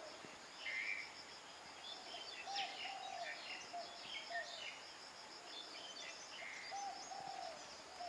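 Morning birdsong: a bird repeats short low notes every second or so while other birds chirp higher up. A steady, high, pulsing trill runs underneath.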